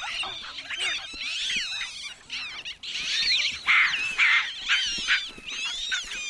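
Gelada troop screaming and squealing in a squabble, many shrill calls overlapping, loudest about halfway through.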